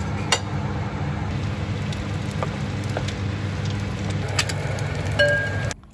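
Kimchi fried rice being stirred and scraped in a wok with a metal spoon: a steady rustling noise with a few sharp clicks of the spoon on the pan, over a steady low hum. It cuts off suddenly near the end.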